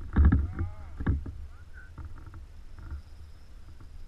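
Water sloshing and splashing right against the microphone at the water surface, over a low rumble, with two louder dull knocks near the start and about a second in.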